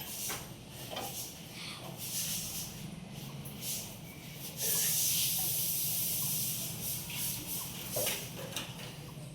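Colouring strokes rubbing on paper: short scratchy strokes, then a louder stretch of steady scratching for about two seconds near the middle. A faint low hum runs underneath.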